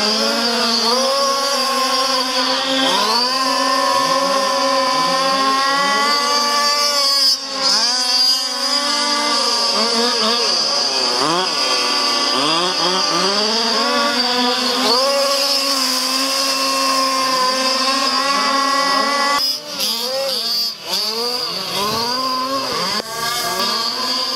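The 30.5cc two-stroke petrol engine of a 1/5th-scale radio-controlled desert trophy truck, revving up and easing off over and over as it laps and corners. There are brief throttle lifts about seven seconds in and again around twenty seconds.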